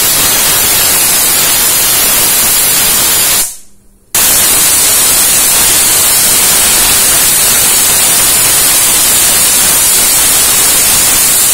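Pressure cooker whistling: steam jets out of the lid's weight valve in a loud, steady hiss that fades away about three and a half seconds in, then a second whistle starts abruptly half a second later and runs on. Each whistle is steam venting at full pressure, and they are counted to time the cooking.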